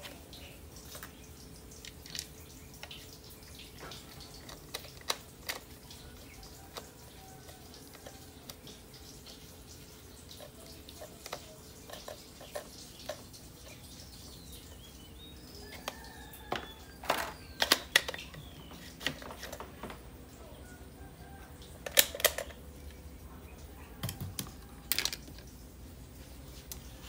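Scattered, irregular light clicks and taps from a handheld heat gun being handled and set down among tools on a glass tabletop, with denser clusters of clicks in the second half, over a faint steady hum.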